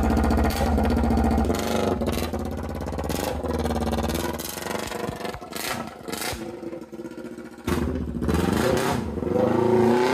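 Kawasaki Ninja sport bike engine idling, then revving and pulling away, climbing and dropping in pitch through several gear changes as it fades down the road. About eight seconds in, a louder engine sound starts abruptly, rising in pitch.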